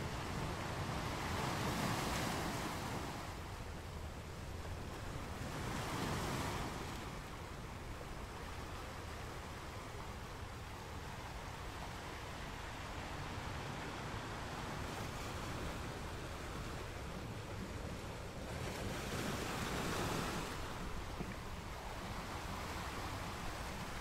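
Ocean surf: a steady wash of breaking waves and foam that swells louder as waves break about two seconds in, again around six seconds, and again near the end.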